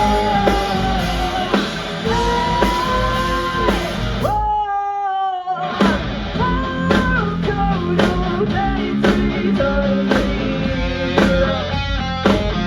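Live rock band playing: a sung lead vocal over electric guitar and drum kit with a steady beat. About four seconds in, the band drops out briefly under a held sung note, then comes back in.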